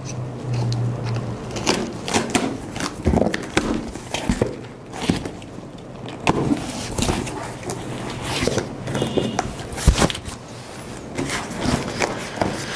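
Cardboard carton being opened by hand: its flaps pulled up and handled, giving irregular crackles, scrapes and knocks.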